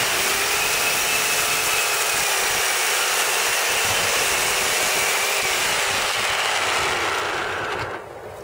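Sun Joe SWJ700E electric chainsaw, its chain brand new, running steadily as it cuts through a piece of old landscape timber. It stops abruptly about eight seconds in.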